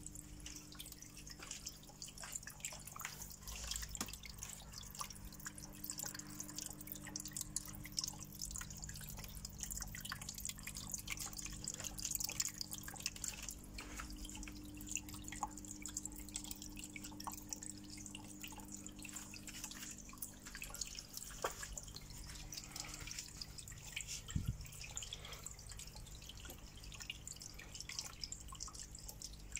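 Water from an aquarium's decorative waterfall trickling and splashing in a steady patter of drips, with a low steady hum beneath.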